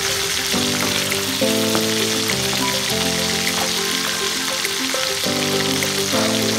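Whole catfish frying in hot oil in a wok, a steady sizzle, under background music of slow, held chords.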